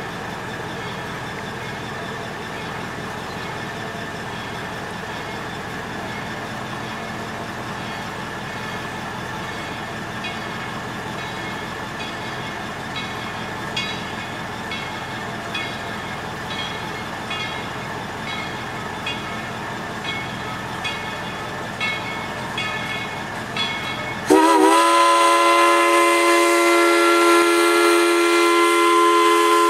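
Tweetsie Railroad's steam locomotive No. 190, a 4-6-0, working toward town with a steady rumble and regular exhaust chuffs, about one to two a second, growing more distinct. About 24 seconds in its steam whistle sounds, several tones at once in a loud held chord that bends up slightly as it opens.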